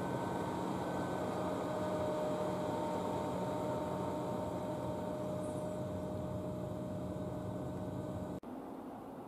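Steady hum of a standing electric train's onboard equipment, with thin steady whines over a low drone. About eight seconds in it cuts off abruptly and gives way to a quieter hiss.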